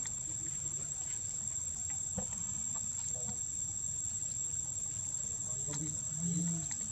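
Insects droning in one steady high-pitched note, with a few faint ticks and a brief low sound about six seconds in.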